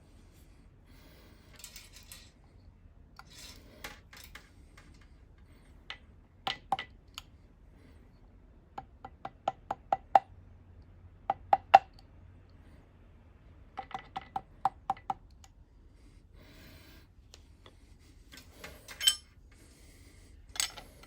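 Light hammer taps on a steel milling fixture, struck in quick runs of several ringing metallic knocks with pauses between, as the fixture is tapped into alignment while it is indicated in on the mill table. Softer scraping and handling noises come between the runs.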